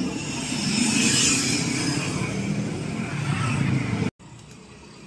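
Street traffic: motor vehicle engines running close by, with motorbikes and cars passing a tour bus at the curb. It cuts off suddenly about four seconds in, leaving only a faint hum.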